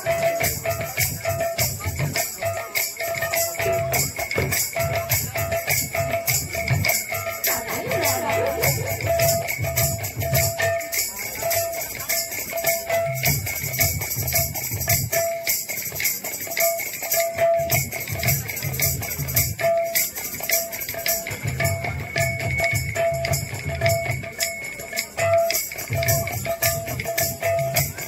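Instrumental passage of kirtan music: a hand drum beats a steady rhythm under jingling cymbal strokes, with one short high note sounding again and again about once a second.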